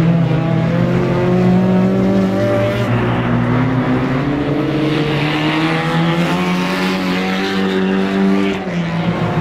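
Several rear-wheel-drive Lada 'classic' race cars running hard on an ice track, their engines at high revs at once, pitches rising and falling as they lift and accelerate through the corners.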